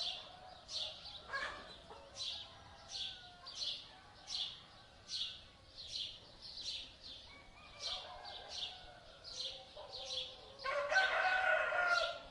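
A small bird chirping steadily, one short high chirp about every two-thirds of a second, with fainter bird calls beneath. Near the end a rooster crows, the loudest sound, lasting about a second and a half.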